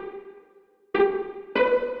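Nokia 8 ringtone melody played as MIDI piano notes. A note dies away, there is a brief pause, and then two new notes start about a second and a second and a half in.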